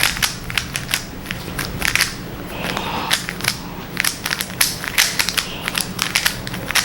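A 3x3 Rubik's cube being scrambled by hand. Its plastic layers are turned quickly, giving an irregular run of clicks and clacks, several a second.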